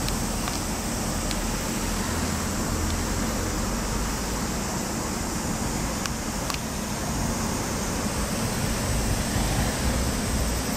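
Steady street traffic noise with a low rumble, and a couple of faint clicks about six seconds in.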